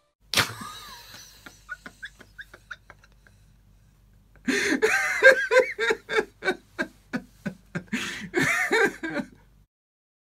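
A man laughing: one sharp burst, then a string of short, faint chuckles. From about four seconds in comes a long run of loud laughs, which cuts off shortly before the end.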